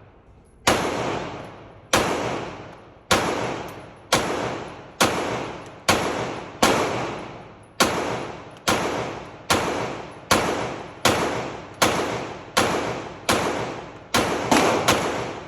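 A string of pistol shots fired about one a second, each ringing out with a long echo, coming faster in the last second or so.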